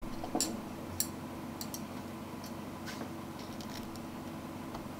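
Scattered light clicks and crisp crackles as chopsticks tap against and pick up pieces of crispy karaage on a plate, over a steady low hum.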